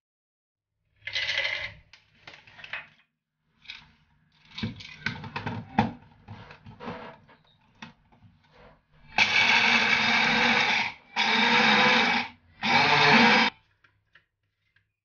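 Almonds and hazelnuts tipped into the plastic cup of a small personal blender, then clicks and knocks as the cup is handled and screwed onto the blade base. Near the end the blender motor runs in three short pulses, the last one briefest, grinding the nuts.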